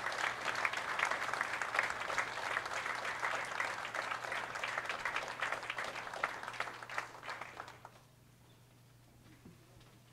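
Audience applauding, the clapping thinning and dying away about eight seconds in.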